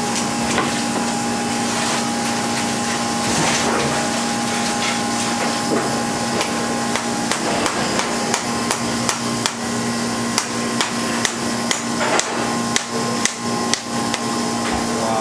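Irregular sharp knocks and cracks of a large knife being driven through a bigeye tuna's bones onto a cutting board, coming more often in the second half. A steady machine hum runs underneath.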